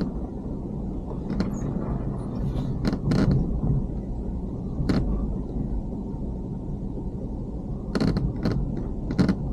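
Ford Ranger driving slowly over a rough dirt track: a steady low rumble with a scattering of sharp knocks and rattles as it bumps along, several of them close together near the end.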